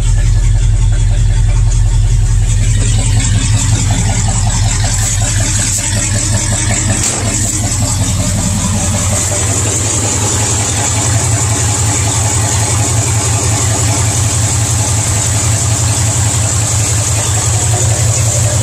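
International Harvester 345 V8 idling steadily as it warms up. It runs smoothly after a decade of sitting and a broken push rod being replaced.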